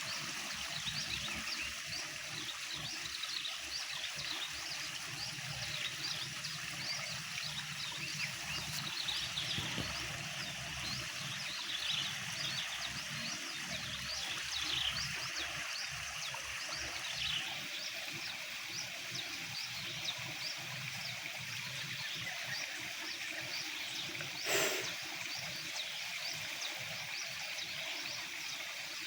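Steady chorus of paddy-field wildlife: many small animals calling at once in short, high, overlapping chirps. One sharp click cuts through late on.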